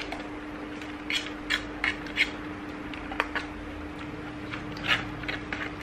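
Eating sounds from people eating instant ramen noodles: about half a dozen short, scattered smacks and clicks, over a steady low hum.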